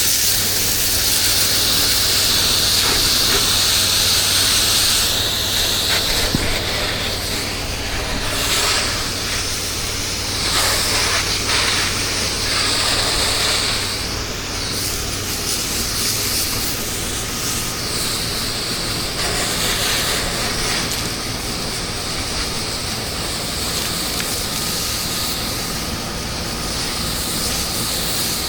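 Pressure washer wand spraying a jet of rinse water onto a house's walls and windows, a continuous hiss that swells and dips as the spray moves, over a steady low hum.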